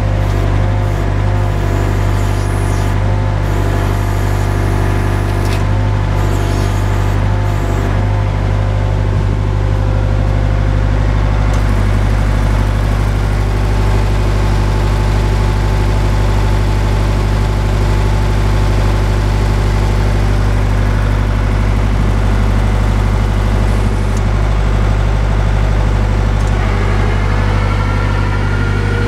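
Boart Longyear DB520 drill rig's engine running steadily, a constant low hum with no change in speed.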